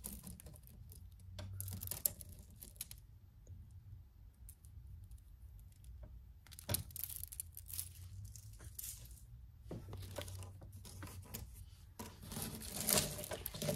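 Costume jewelry being handled: a metal chain and strands of beads clicking and rustling in three spells of small clicks, the last and loudest near the end.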